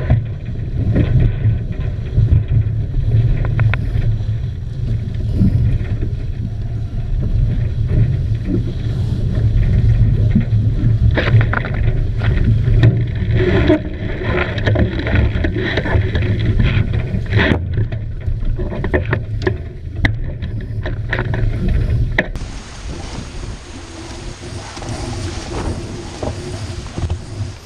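Sailing catamaran at speed in a strong wind: wind buffeting the microphone over the rush of water past the hulls, with scattered knocks and clatters. About 22 seconds in, the sound changes to a quieter, hissier wash of water and wind.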